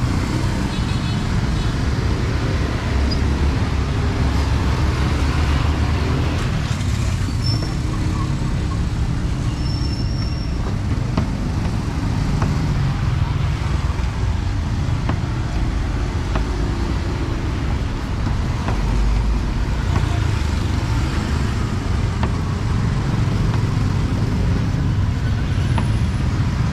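Steady street traffic: motorbikes and other vehicles running past on a city road, a continuous low hum of engines and tyres.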